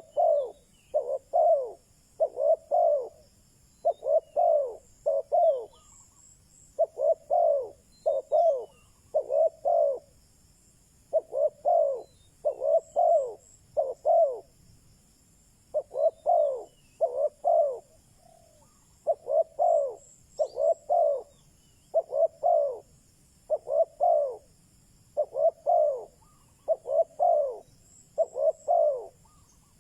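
Spotted dove (chim cu gáy) cooing: the male's repeated song of short, falling coos in phrases of two to four notes, one phrase every couple of seconds. This is a decoy bird's call, used to provoke and draw in wild doves.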